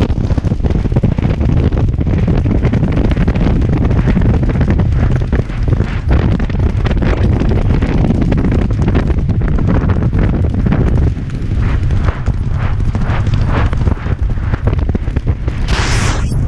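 Heavy wind buffeting a jockey's helmet-mounted camera microphone as a racehorse gallops flat out on turf. In the later part a rhythmic pulse of the gallop, about two to three beats a second, comes through the rumble, and a short, sharper rush of noise comes near the end.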